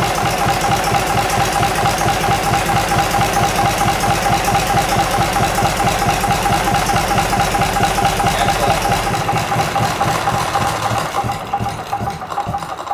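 Gardner 3LW three-cylinder marine diesel running steadily with an even, rapid beat and a steady high note over it, then dying away over the last few seconds.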